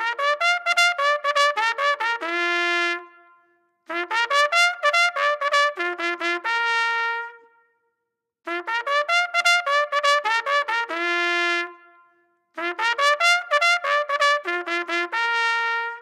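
Background music: a bright trumpet tune in four phrases of quick notes, each phrase ending on a long held note, with short pauses between them.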